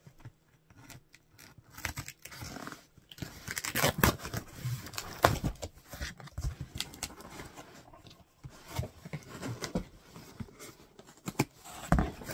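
Cardboard shipping box being opened by hand: irregular scraping, tearing and knocking of the box, its tape and flaps, loudest around four to five seconds in.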